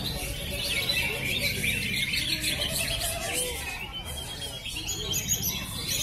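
Cucak hijau (green leafbirds) singing in contest cages, several at once: a dense, unbroken run of fast, overlapping chirps and whistled phrases.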